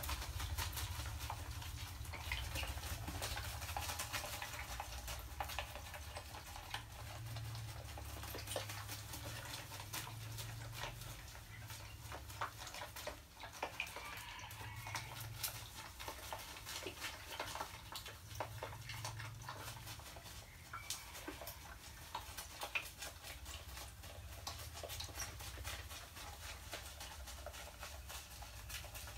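A rat struggling in a water-filled glass tank topped with foam beads, caught in a water trap: irregular small splashes, patters and ticks over a low steady hum.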